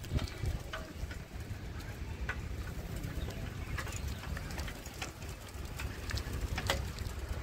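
Outdoor ambience: a low steady rumble with scattered short bird chirps.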